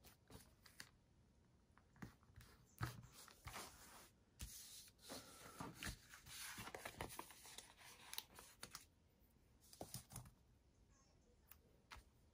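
Faint rustling and crinkling of paper sticker sheets and planner pages, with light taps and clicks, as stickers are peeled off a sheet and pressed onto the page; busiest through the middle.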